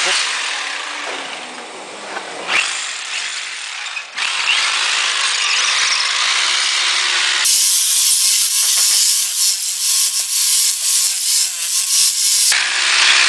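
Power drill running in several short cut-together clips. The loudest stretch, from about halfway through for five seconds, is a high hiss with a rapid pulsing.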